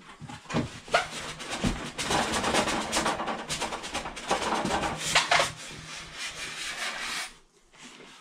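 Cardboard box being slid up and off a foam-packed portable propane heater: a long scraping rub of cardboard against the foam packing, with many small knocks. It dies away about seven seconds in.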